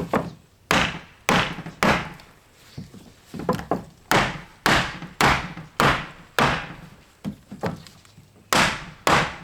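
Hammer blows on wood, a dozen or so sharp strikes at about two a second with a couple of short pauses, each ringing briefly, as window trim or framing is knocked loose.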